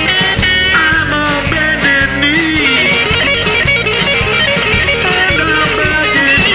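Background rock music: guitar playing over a steady drum beat.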